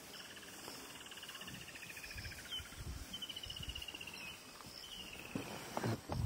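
Insects in the grass trilling in repeated rapid pulsing phrases about a second long. Near the end there is a louder crackling rustle.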